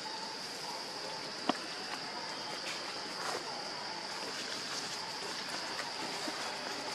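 Steady, high-pitched drone of insects over a soft outdoor hiss, with a single sharp click about one and a half seconds in.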